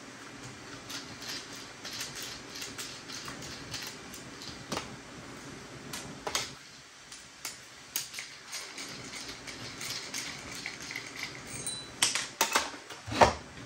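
Hand screwdriver ticking and clicking as small screws are backed out of a metal hard-drive bracket, with light clinks of the screws and metal parts handled on a tabletop. A few sharper clacks near the end as parts and the screwdriver are set down.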